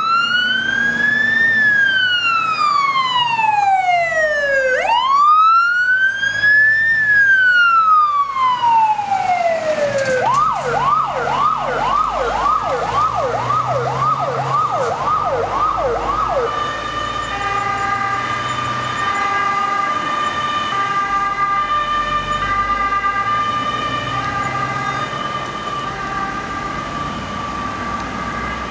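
Fire engine siren sounding as the truck sets off: two slow rising-and-falling wails, then a fast yelp of about two sweeps a second for some six seconds, then a long steady tone.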